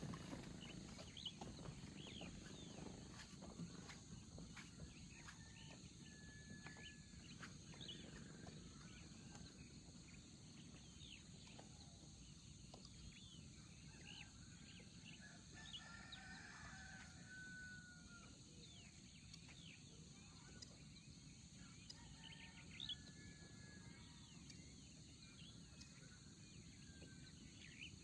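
Quiet rural outdoor ambience: a faint low rumble of wind with scattered short bird chirps and a few longer distant calls.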